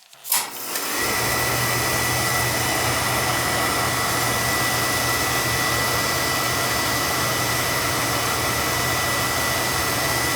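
Beckett oil burner starting: a click, then about a second in the blower motor and flame come on and run steadily, a loud even rush with a low hum and a thin high whine over it. The burner is not breathing well, which the technician takes for a boiler choked with soot that needs cleaning.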